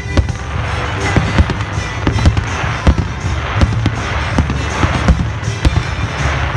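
Fireworks display: aerial shells bursting in sharp bangs, about two or three a second, with a dense crackling hiss from the glittering stars between them.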